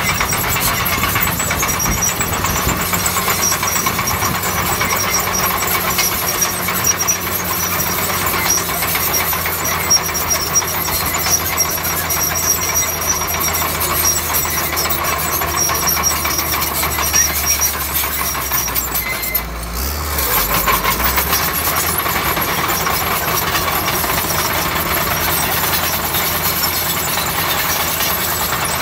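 Crawler bulldozer's diesel engine running steadily under load, with a dense metallic clatter from the tracks as it pushes soil. The engine note dips and changes briefly about two-thirds of the way through.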